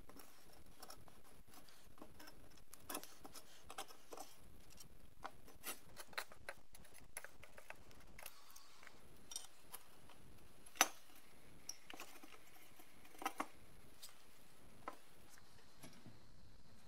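Pliers working the rusty steel legs of a vintage Moulinette food mincer free of their brackets: scattered light metallic clicks and taps, the sharpest about eleven seconds in.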